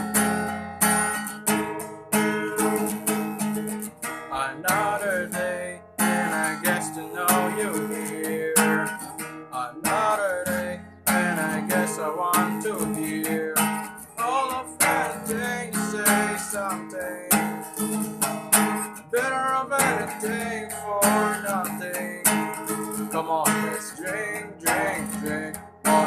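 Acoustic guitar strummed in a steady rhythm, with a voice singing over it.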